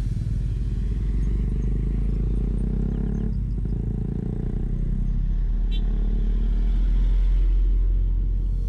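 Steady low rumble of wind on the microphone of a moving bicycle, mixed with road and traffic engine noise; it swells a little near the end.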